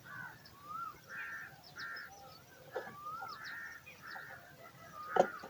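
Hungry nestling bird giving repeated begging calls for food: a string of short calls, some with a rising-and-falling slur. A sharp knock about five seconds in is the loudest sound.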